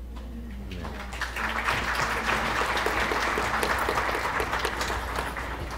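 An audience applauding in a hall. The clapping builds about a second in and eases off near the end, over a steady low hum.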